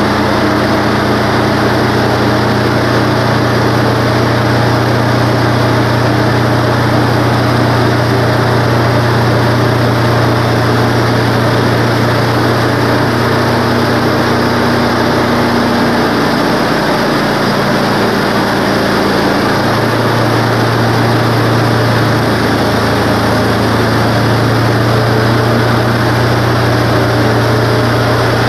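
Wood-Mizer LT15 bandsaw mill's engine running steadily at speed. In the second half its note changes as the band blade feeds into the pine log and the head begins its cut.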